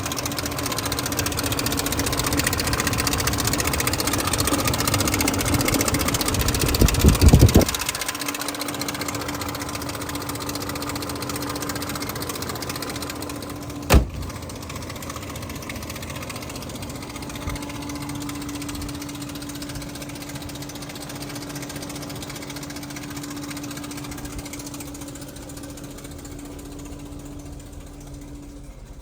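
BMW E38 740iL's 4.4-litre V8 idling steadily, with the noise the owner puts down to failing timing chain guides. About halfway through there is one sharp knock.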